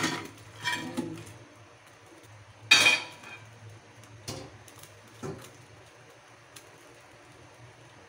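Whole blue swimming crabs tipped from a glass bowl into a dark metal wok, their hard shells clattering against the pan. A louder sharp clatter comes nearly three seconds in, then a couple of lighter knocks, before it settles.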